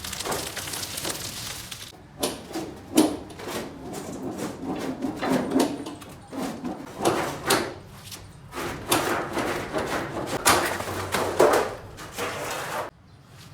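Irregular clanks and knocks of stainless sheet metal being handled and worked, some sharp, some rattling with a short echo; the sound cuts off suddenly near the end.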